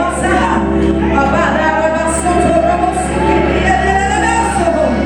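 Church worship music playing steadily, with a voice singing over sustained low chords.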